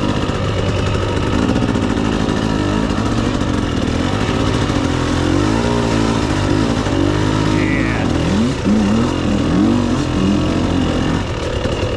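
Dirt bike engine running under the rider, steady at first, then revved up and down several times in the second half as the throttle is worked over the muddy ground.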